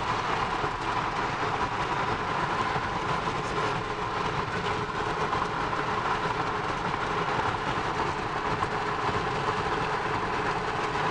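Steady road and tyre noise heard from inside a car's cabin while driving on a highway, with a faint steady whine over it.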